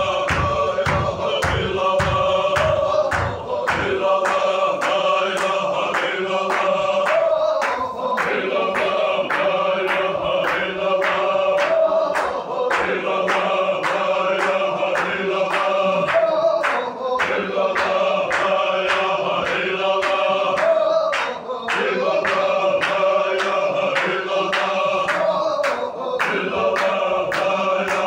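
A group of men chanting a zikr together, with sharp rhythmic beats about two a second running through the chant. Deep thuds sound under the beat for the first few seconds, then stop.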